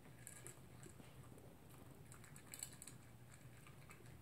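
Faint ticking and crunching of a toy poodle eating from its bowl: short clicks of teeth and food against the bowl, in small clusters, over a low steady hum.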